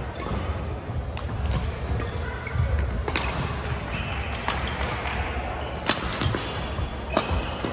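Badminton doubles rally: four sharp racket strikes on the shuttlecock, starting about three seconds in and coming about every second and a half, over players' footfalls on the hall's wooden court.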